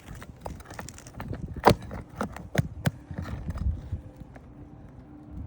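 Irregular sharp knocks and taps from work on an asphalt shingle roof. The loudest comes a little under two seconds in, followed by a few more over the next second.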